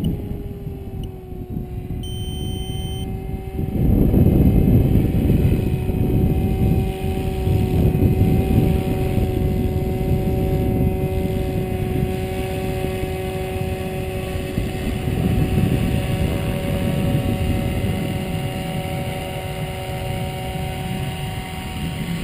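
SAB Goblin 500 electric RC helicopter's motor and rotor whining at a steady pitch as it flies and comes down to land, with a low rushing noise that grows loud about four seconds in. A short high beep sounds about two seconds in.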